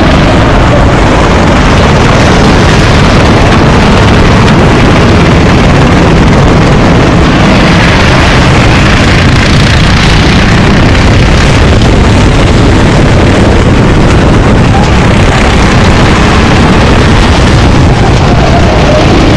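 Racing kart engine running hard, its pitch rising and falling, under heavy wind noise on the microphone.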